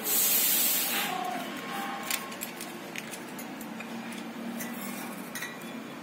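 A hissy rush of noise about a second long at the start, then scattered light clicks and taps with a few faint short chirps, from an Alexandrine parakeet moving about a wooden perch stand.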